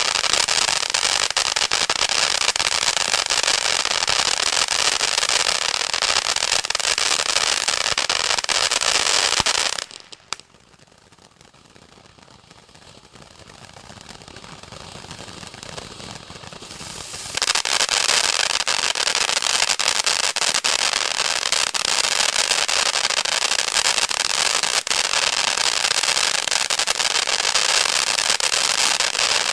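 Winda 'Happy Panda' ground firework fountain spraying sparks, with dense, loud crackling. About ten seconds in the crackle drops away after a single pop, leaving a quieter hiss that builds for several seconds. Then the loud crackling comes back and carries on.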